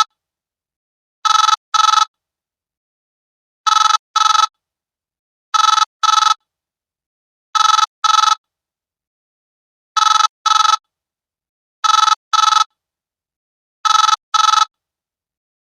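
Old mobile phone ringtone: pairs of short electronic beeps, two in quick succession, repeating about every two seconds with silence between.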